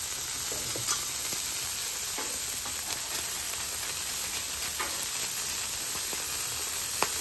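Smashed 75/25 ground-beef patties and buns sizzling steadily on a flat-top griddle heated to about 450 degrees. A few light clicks and scrapes of a metal spatula on the griddle come through the sizzle.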